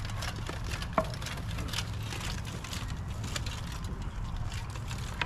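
Sparring with practice swords: scattered knocks of weapons striking, with one sharp hit about a second in, over a steady low rumble.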